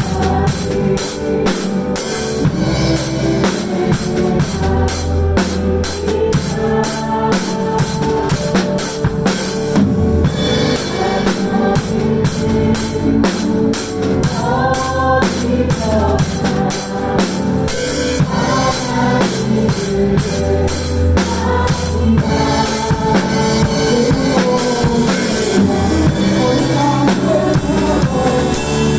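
Drum kit played along to a contemporary worship song backing track: a steady beat of bass drum, snare and cymbals over the band recording.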